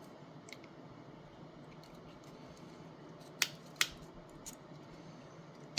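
Sharp metallic clicks from a hose clamp pliers set being handled: a couple of small ticks, then two louder clacks in quick succession about three and a half seconds in, and one more at the very end, over faint room hiss.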